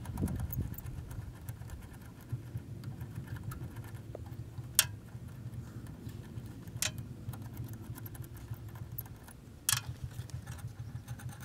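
Small sharp metallic clicks, three standing out at about five, seven and ten seconds in, as hands work at a trailer's torsion-axle wheel hub and its lug studs, over a low uneven rumble.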